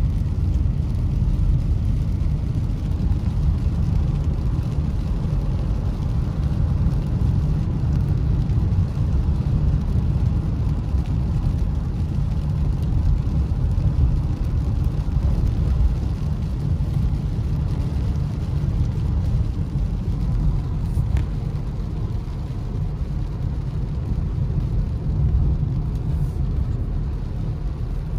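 Steady low rumble of a car driving on a rain-soaked road, heard from inside the cabin: engine and tyre noise with a faint hiss above it.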